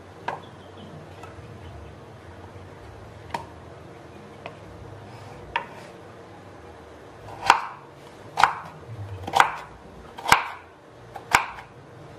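Kitchen knife slicing through peeled raw potato and knocking on a wooden cutting board: a few light, scattered cuts, then about halfway through five louder chops about a second apart.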